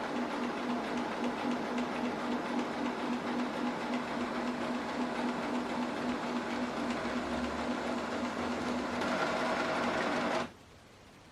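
HP DeskJet 3700-series printer's flatbed scanner running a scan: the scan-head motor whirs steadily with a low hum, brightens in tone near the end, then cuts off suddenly.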